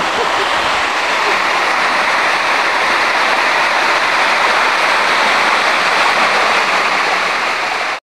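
Loud, steady rush of a shallow rocky stream pouring over small cascades, the water running close around the legs of people wading through it.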